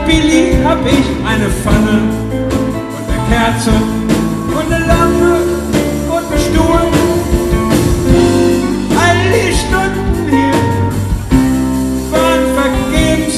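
Live band playing a song: a man singing lead over electric guitar, bass guitar, keyboard and drums, amplified through a PA.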